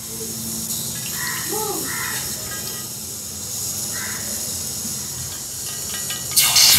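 A domestic cat meowing a few times in short, arching calls. Near the end, loud sizzling starts suddenly, as food frying in a pan.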